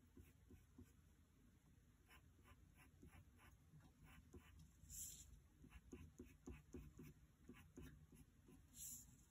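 Faint scratching of a graphite pencil drawing on paper: quick short strokes, with two louder, longer sweeps about halfway through and near the end.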